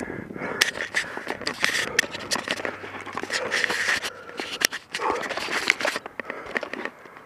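Cannondale mountain bike rolling fast down a dry dirt trail: tyres crunching on grit and dry leaf litter, with many sharp rattles and knocks from the bike over bumps. The noise drops near the end.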